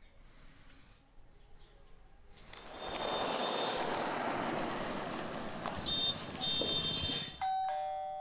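Faint scratching of a pencil on paper, then the noise of street traffic with a motorbike passing and a few short high beeps. About seven seconds in, an electronic doorbell chime rings out and fades.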